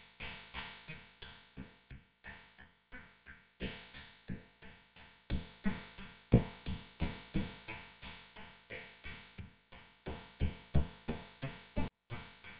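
Background music with a steady, even beat, broken by a short pause near the end.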